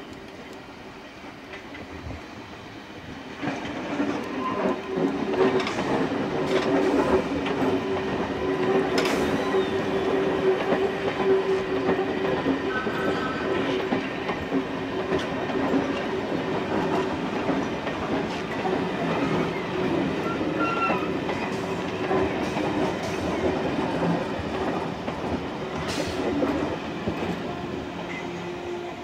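London Underground C Stock train running in alongside the platform: a steady rumble and hum that grows louder about three and a half seconds in, with a few sharp wheel clicks over the rails.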